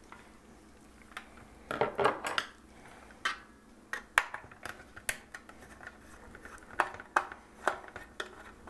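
Scattered clicks and light clatter of a screwdriver and small parts being worked on an opened portable radio's plastic case and circuit board, with several sharp taps spread through it.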